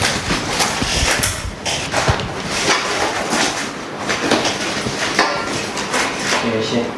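Repeated rustling and knocking as accessories and their packaging are handled and unpacked, with irregular knocks and clatter throughout.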